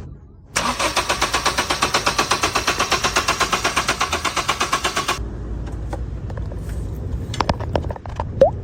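Car engine cranking on the starter, a fast rhythmic pulsing of about eight beats a second that stops abruptly after some four and a half seconds. A low steady rumble follows, with a few sharp clicks near the end.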